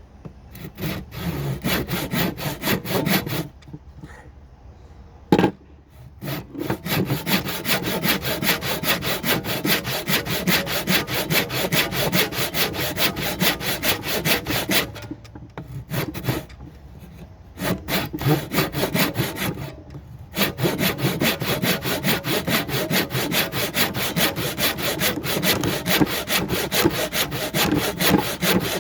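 Hand saw cutting relief cuts into a cedar block in quick, steady back-and-forth strokes, stopping briefly a few times, with a single sharp knock about five seconds in.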